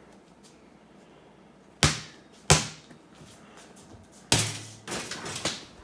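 A basketball striking hard surfaces during a shot: four sharp thuds, two about two-thirds of a second apart, then after a pause two more about half a second apart, the first of these leaving a brief low ringing. The shot misses.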